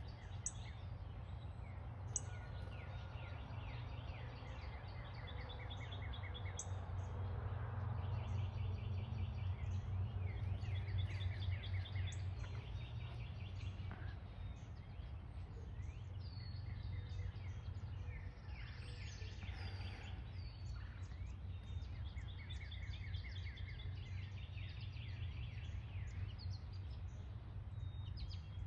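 Small songbirds chirping and singing in short runs of rapid repeated high notes, again and again, over a steady low hum of background noise.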